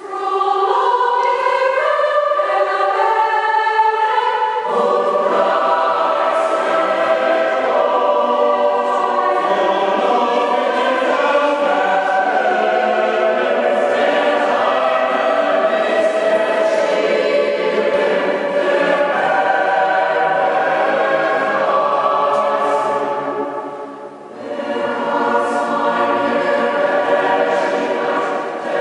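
Mixed choir singing. The upper voices start alone, and the lower voices join about five seconds in. There is a short break between phrases near the end.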